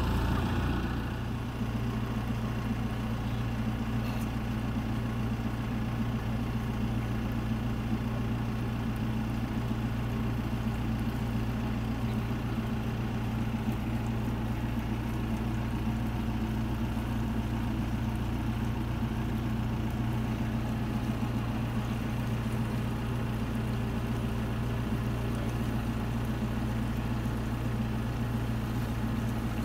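Lifeboat launch tractor's engine idling steadily, a low even hum, after settling down from higher revs about a second in.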